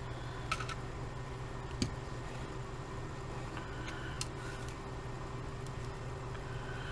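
A few small sharp clicks and taps of the cassette recorder's casing and parts being handled during disassembly, the loudest about two seconds in, over a steady low hum.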